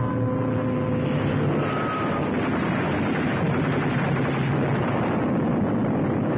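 Steady, dense rumbling roar of battle noise, with held notes of the background music fading out about a second in.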